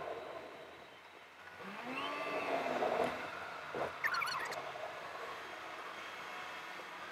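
Sped-up driving noise of a car moving through city traffic, road and engine sound at four times speed. A few quick rising-and-falling tones about two seconds in, and a short crackly burst about four seconds in.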